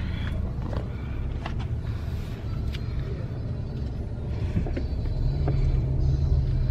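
Low, steady rumble of a vehicle running, with a steady low hum joining about five seconds in.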